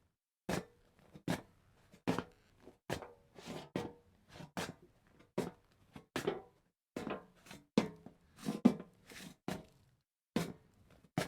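Footsteps walking on hollow metal at a steady pace, a bit more than one step a second. Each step lands with a sharp clank and a short metallic ring.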